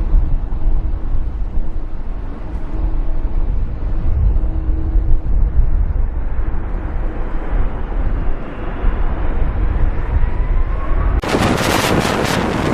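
Heavy low rumble with wind buffeting the microphone, and a faint whine rising near the end. About eleven seconds in it cuts abruptly to loud, rushing wind noise on the microphone.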